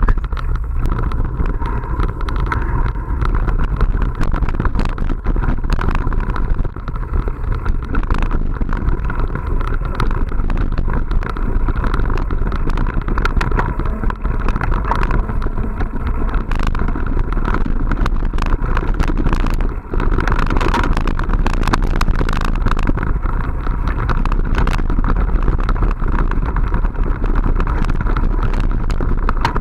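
Riding noise picked up by a mountain bike's action camera: a steady low wind rumble on the microphone, with constant small rattles and clicks from the bike jolting over dirt and gravel.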